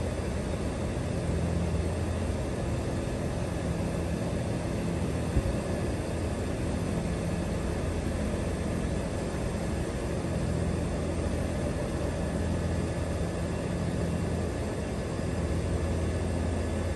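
A 2018 York air conditioner condenser running steadily: the outdoor fan blowing, with a low compressor hum that swells and fades slightly every few seconds. The unit is short cycling.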